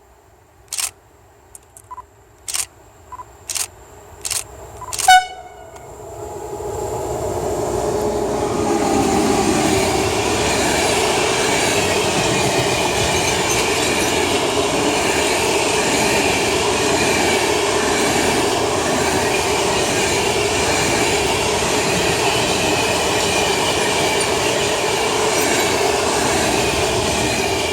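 FS E652 electric locomotive hauling a freight train of closed wagons past at speed, with steady rolling wheel and wagon noise. About eight sharp clicks come in the first five seconds, the last one ringing briefly, before the train reaches the spot and the noise builds and holds.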